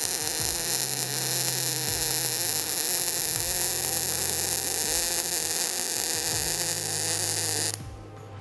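MIG welding arc on a butt joint: a steady crackling hiss for almost eight seconds that cuts off shortly before the end. The bead is run with the proper gap and heat, giving full penetration.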